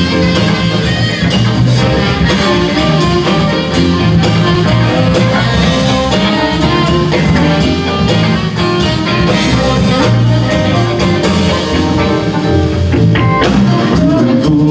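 Live band playing an instrumental passage with electric guitars, bass guitar, drum kit, saxophone and keyboard; steady and loud, with no vocals yet.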